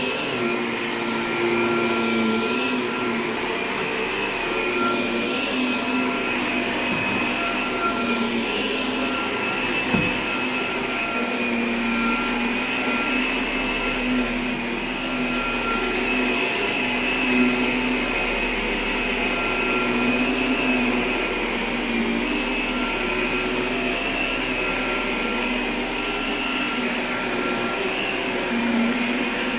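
Upright vacuum cleaner running steadily as it is pushed back and forth over carpet, its motor giving a steady high whine that wavers slightly in pitch. A brief knock about ten seconds in.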